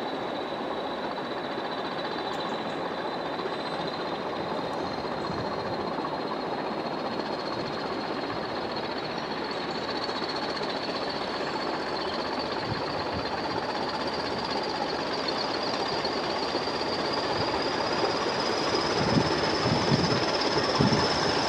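English Electric Class 20 diesel locomotive, with its eight-cylinder 8SVT engine, hauling coaches on its approach: a steady running noise that grows louder. Over it sits a thin high whistle that rises slightly in pitch, and a few low thumps come near the end.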